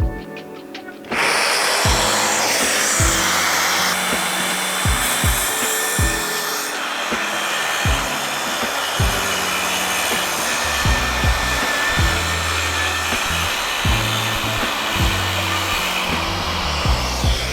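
A power tool starts about a second in and runs steadily, over background music with a regular beat.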